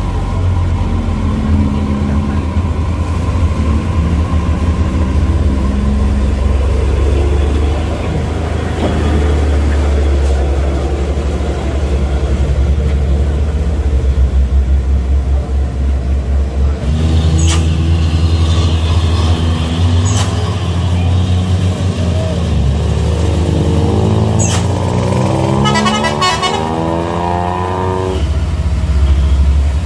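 Heavy diesel truck and car engines running as traffic creeps through a steep hairpin bend, with vehicle horns honking repeatedly in the second half.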